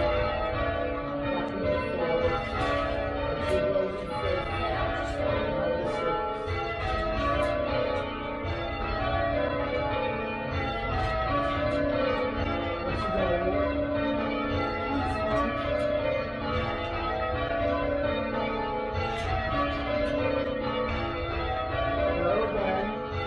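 A band ringing a peal of church bells in change ringing, the bells struck one after another in a steady, even rhythm with their tones overlapping.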